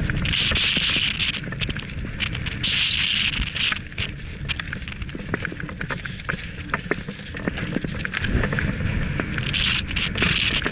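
Mountain bike descending over loose gravel and rocks: tyres crunching and crackling on the stones with constant rattling clicks from the bike, under low wind rumble on the microphone. Three short bursts of hiss, about half a second in, around three seconds and near the end, as the tyres skid or spray gravel.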